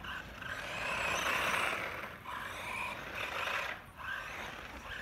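RC monster truck driving on asphalt, its motor and tyres heard in two swells of noise, the first peaking about a second and a half in and the second around three seconds in.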